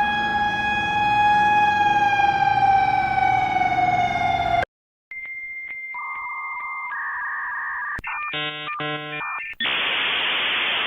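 Synthesized emergency alert alarm audio. A steady horn-like siren tone sags in pitch and cuts off about four and a half seconds in. After a brief gap comes a string of electronic alert tones: a high beep, a lower steady tone stepping up to a higher one, rapid switching tone chirps, and a burst of static near the end.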